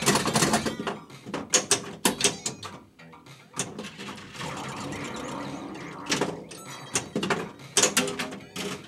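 Bally Elvira and the Party Monsters pinball machine in play: sharp clacks of the flippers, the ball striking targets and the solenoids firing, in clusters, with a stretch of steadier noise in the middle. The game's electronic sound effects are heard near the start.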